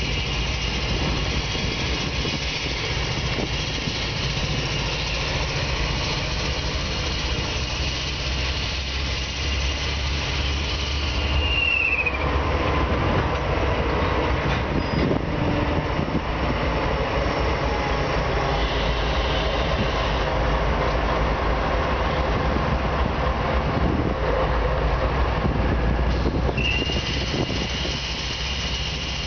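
Two CSX diesel locomotives, an ES44DC and a C40-8, running with a steady low engine rumble. Over it a high, thin, steady squeal holds, bends down and cuts out about twelve seconds in, then comes back near the end.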